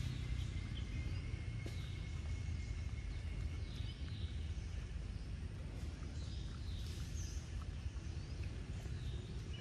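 Outdoor ambience: a steady low rumble with scattered short, high bird chirps, a few of them about two seconds in and several more between four and seven seconds in.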